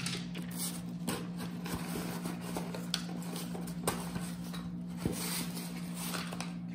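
Hands handling a cardboard phone box and pulling out a paper insert: scattered light taps, clicks and rustles over a steady low hum.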